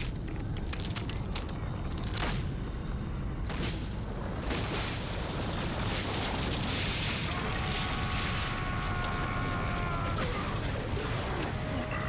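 Cartoon battle sound effects of an air attack: a continuous rumble of explosions and blasts punctuated by sharp cracks. From about eight seconds in, a held whine sounds over it and drops in pitch near the end.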